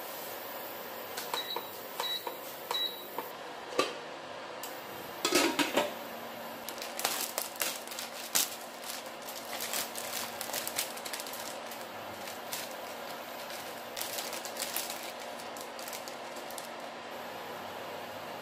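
Induction cooktop's touch panel beeping three times as its buttons are pressed, then a metal clank as the stainless lid goes onto the pot, and the cooker's fan starting up with a low hum. Over the hum, the plastic wrapper of an instant-noodle packet crinkles and crackles as it is torn open.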